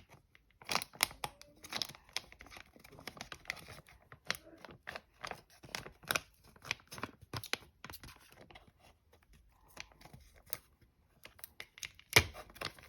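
Plastic toy wrapper being pulled at and torn by hand, crinkling and crackling in irregular sharp snaps, with a couple of brief pauses.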